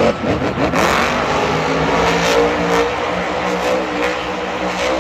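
Monster truck engine revving on a stadium dirt track after the truck has rolled over onto its roof, under a steady wash of crowd noise. A loud burst comes right at the start.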